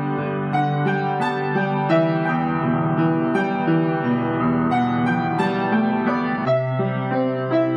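Solo piano playing a slow piece: single melody notes changing about twice a second over sustained low bass notes and chords, with a new bass note coming in about six and a half seconds in.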